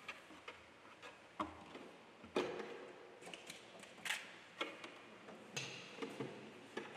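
Giant panda cub's claws clicking and scraping on the wooden planks of its box as it climbs up the wall: irregular clicks and knocks, the loudest about two and a half seconds in.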